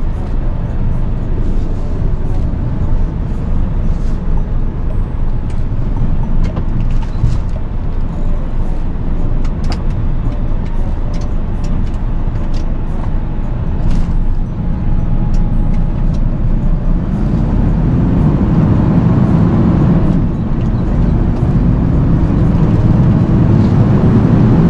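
Tractor-trailer truck running on the road: a steady low engine and road rumble. Over the last several seconds the engine note rises slowly in pitch and grows a little louder as the truck accelerates.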